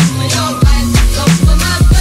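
Background music with a steady beat: deep kick drums, a held bass line and crisp high percussion.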